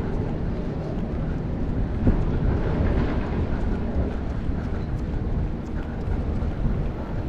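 Outdoor city street noise: a steady low rumble of traffic, with wind buffeting the microphone.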